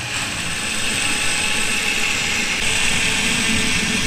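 Countertop blender motor running steadily at full speed, its blades churning canned tuna, rice cakes and water into a liquid shake.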